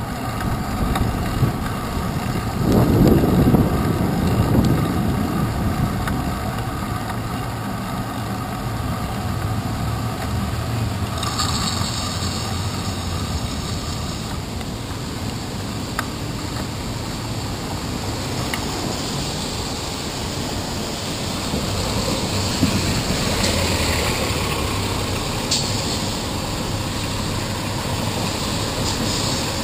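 Steady city traffic and road rumble picked up by a handlebar-mounted action camera while cycling on wet streets, with a louder swell of vehicle noise about three seconds in.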